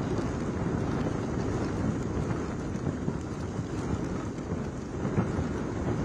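Gusty cyclone wind with rain, a deep steady rushing that buffets the microphone, as trees thrash in the storm.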